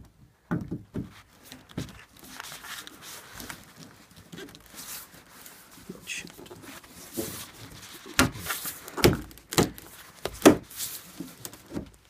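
Painted wooden stand panels being handled and hooked together on metal bed post hooks: scrapes and knocks, with a run of several loud knocks about eight to eleven seconds in. The hooks are a tight fit on the freshly painted panels.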